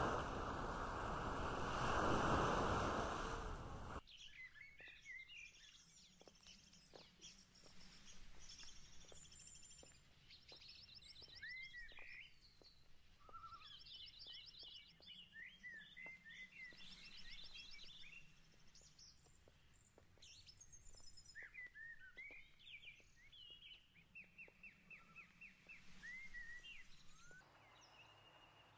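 A loud, steady rushing of wind or surf for about four seconds, which cuts off suddenly. Then birds singing outdoors: many short chirps, sweeping calls and rapid trills overlapping, which quieten near the end.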